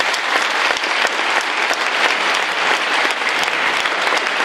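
Large audience applauding, a dense, steady clapping that runs without a break.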